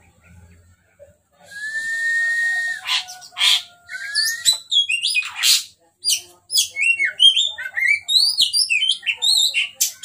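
Oriental magpie-robin singing: a long held whistle, then a quick run of varied rising and falling whistled notes and chirps.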